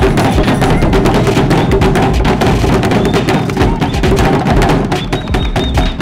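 Several large hide-covered drums beaten with sticks by a group of drummers, a fast, dense rhythm of strikes.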